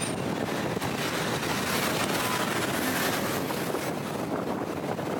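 Wind rushing over the microphone of a camera held outside a moving car, mixed with the car's tyre and road noise, steady throughout.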